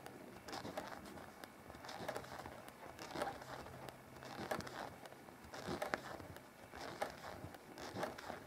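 Knitting needles working knit stitches in acrylic yarn: faint soft clicks and rustles, roughly one a second.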